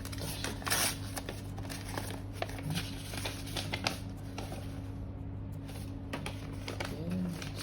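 Paper packaging inside a box rustling and crinkling as it is handled, with small clicks and taps and a louder rustle just under a second in. A steady low hum runs underneath.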